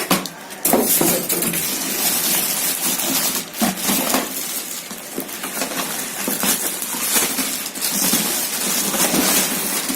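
Packaging rustling and scraping as a printer is lifted out of its box and unwrapped, with irregular clicks and knocks throughout.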